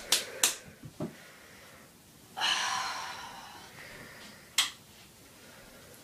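A few sharp clicks and knocks in the first second as things are handled at a nightstand, then a loud sigh about two and a half seconds in, and a single sharp click near the end as the light switch goes off.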